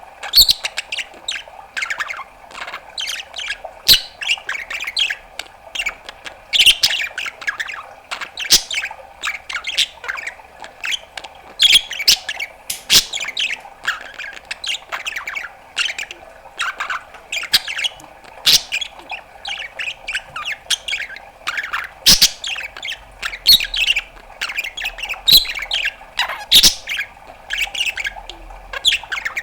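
Budgerigar chattering: a fast, continuous run of short chirps, squawks and clicks with no pauses.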